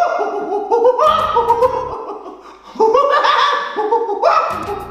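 A man imitating a monkey: loud, high-pitched 'ooh ooh aah aah' hoots that step and slide upward, in runs broken by a short pause about halfway through.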